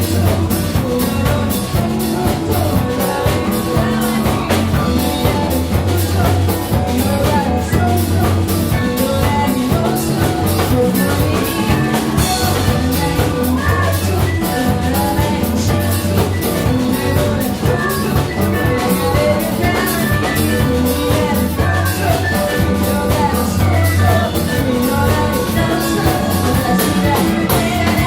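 Band music: a drum kit playing a steady beat over sustained bass and other instruments.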